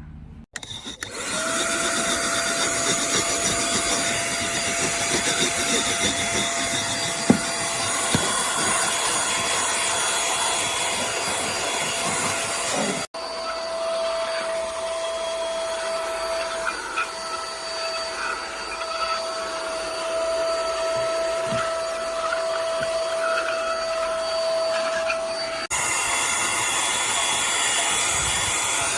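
Portable cordless mini vacuum cleaner running: a steady motor whine over loud rushing suction noise. It starts abruptly just after the beginning and changes sharply twice, as if cut between takes.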